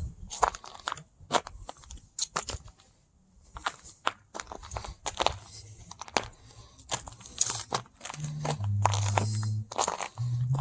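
Frozen dirt crunching in a run of irregular, sharp crunches, with a brief lull about three seconds in. Near the end a low hum that steps between a few pitches comes in under the crunches.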